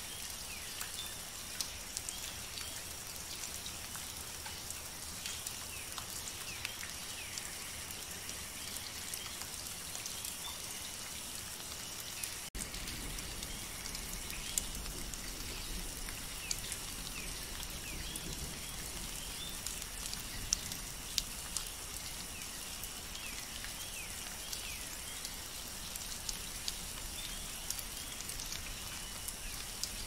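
Steady rain, with many separate drops striking leaves close by over an even hiss. About twelve seconds in the sound briefly drops out, and afterwards a low rumble underneath is a little stronger.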